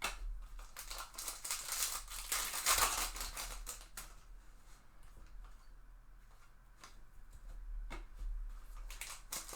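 Trading cards and pack wrappers being handled: rustling, crinkling and small sharp clicks, busiest in the first three seconds, quieter in the middle, with a few separate clicks near the end.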